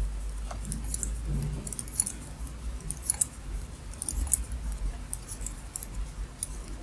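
Double-pointed knitting needles ticking and clicking against each other as stitches are knitted in the round, in light, irregular clicks a few times a second.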